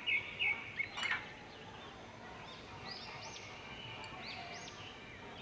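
Small birds chirping: a few short chirps at the start, then a run of high, arching notes repeated from about halfway through. A single sharp tap about a second in.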